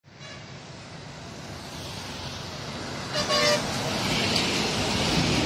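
Highway traffic passing close: road noise builds, a vehicle horn sounds briefly about three seconds in, then a lorry goes past with rushing tyre and engine noise.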